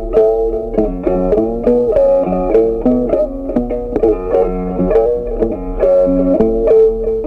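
Background music: a melody of quick plucked-string notes.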